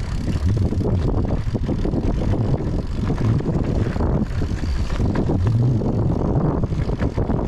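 Steady road noise of a car driving: a low rumble of engine and tyres with scattered short knocks.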